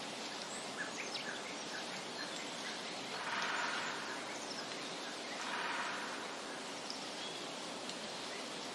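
Outdoor nature ambience: a steady rushing hiss, with a few faint short bird chirps in the first couple of seconds and two brief louder swells in the middle.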